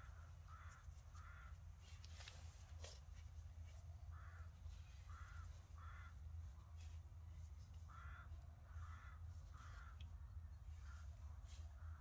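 Faint crows cawing, in runs of about three calls every few seconds, over a low steady hum with a few light clicks.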